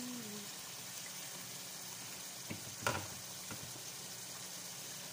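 Chicken pieces cooking in a thick spiced sauce in a pot on a gas burner, giving a steady sizzle. One sharp click about three seconds in.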